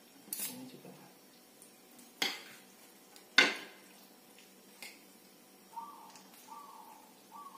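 Metal spoon and fork clinking against a ceramic plate while instant noodles are tossed and mixed: a few sharp clinks, the loudest about three and a half seconds in. Near the end comes a string of short squeaks, about one a second or a little faster.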